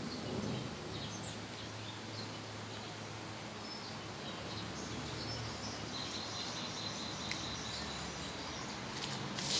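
Steady outdoor background noise with a faint low hum and a few faint, high chirps. A short burst of noise near the end.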